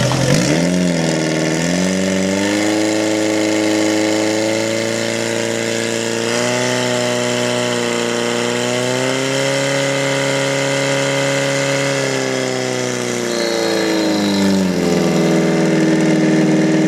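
Racing portable fire pump engine of a firefighting-sport team running hard under load, pumping water into the attack hoses. Its pitch dips and climbs back in the first couple of seconds, holds high and steady, then drops to a lower steady note as it is throttled back near the end.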